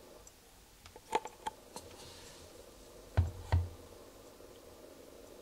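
Handling noise from a plastic motor-oil bottle and its screw cap: a few light clicks, then two dull thumps about a third of a second apart, a little past halfway.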